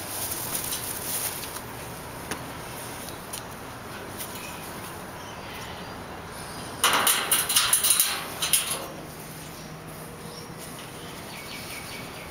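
Close-up scuffling and handling noise from a blue-and-gold macaw grappling with a hand and mouthing at the camera: wings flapping near the start, then a loud burst of rapid scrapes and clicks lasting about two seconds, about seven seconds in.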